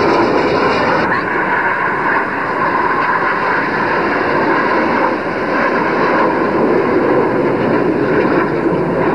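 Jet aircraft flying over in a display, a steady rushing jet noise with no rise or fall.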